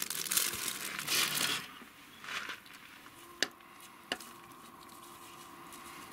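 Thin clear plastic packet crinkling for about the first second and a half as shiso leaves are pulled out. Then two sharp knocks, under a second apart, from the kitchen knife on the wooden cutting board.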